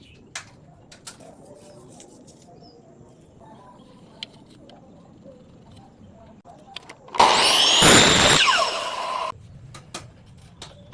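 A power tool runs loudly for about two seconds, starting suddenly about seven seconds in and cutting off abruptly, after scattered light taps and clicks of handwork.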